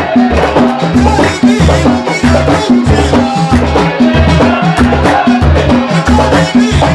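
Gulf folk band music: deep drums beat a steady, driving rhythm under hand percussion and a melody line.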